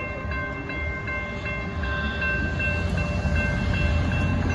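Amtrak Texas Eagle passenger train passing, a low rumble that grows louder. A grade-crossing bell rings steadily over it, about three strikes a second.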